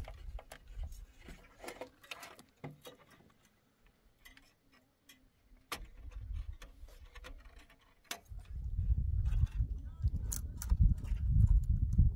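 Scattered light clicks and knocks from work being handled, with a near-quiet stretch in the middle; a low, uneven rumble comes in about eight seconds in.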